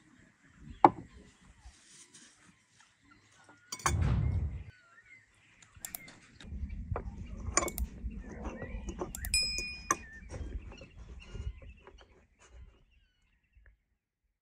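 Cutlery and plates clinking and tapping during a meal: scattered sharp clinks, one with a short ring. A short low rumble about four seconds in and a longer one in the middle.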